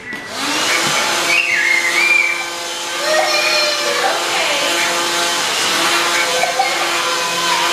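Household vacuum cleaner switched on just after the start and running steadily with a constant hum.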